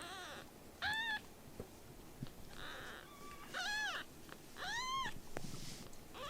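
Kitten meowing repeatedly: about five short, high-pitched mews, each rising and then falling in pitch.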